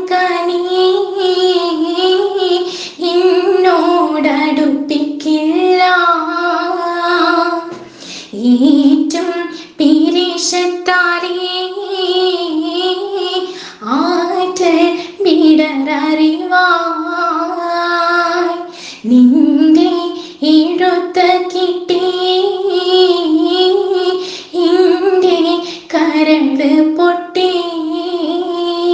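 A woman singing a Mappila song, a kathupattu (letter song), in long melodic phrases with held, wavering notes and brief pauses between them.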